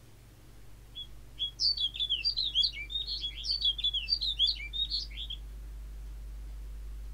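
Snow bunting singing: one rapid phrase of short, high warbled notes, starting about a second in and lasting about four seconds.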